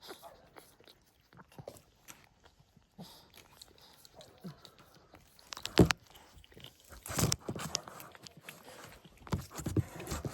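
Wet chewing and licking sounds from a Boston Terrier mother working over her newborn puppies, with a sharp knock about six seconds in.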